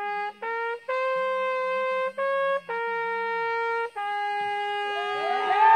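A trumpet-like horn plays a slow six-note tune: held notes climb over three steps, drop back, and end on a long low note. Whooping voices start up near the end.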